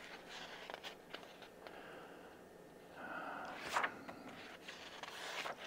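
Faint rustling and light ticks of a comic book's pages being turned by hand, with a slightly louder rustle about three seconds in.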